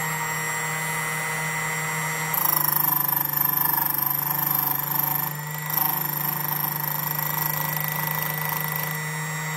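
Jensen Micro-Dial key code machine's motor running with a steady hum. About two seconds in, the cutter starts cutting a depth-4 notch into a B86 ignition key blank, a harsh high hiss over the hum that eases briefly midway and stops near the end.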